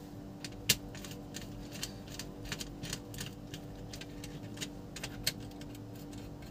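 Irregular small clicks and ticks of a screwdriver tip turning and seating the brass terminal screws of a plastic switch module, tightening a wire in place. The sharpest click comes about a second in. A faint steady hum runs underneath.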